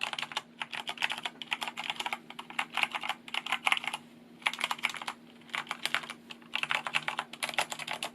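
Fast typing on a Corsair K70 LUX RGB mechanical keyboard with Cherry MX Brown switches and double-shot PBT keycaps: quick runs of keystroke clicks, broken by a short pause about four seconds in and another near the end.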